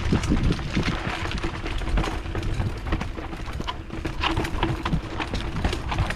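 Mountain bike being ridden down a dirt jump trail: quick irregular rattles and knocks from the bike over the bumps and tyre noise on dirt, with a faint steady hum underneath.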